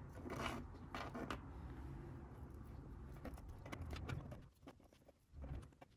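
Thin laser-cut plywood puzzle pieces handled and fitted together: light wooden clicks and taps, with a couple of louder handling rustles in the first second and a half and a soft thump near the end.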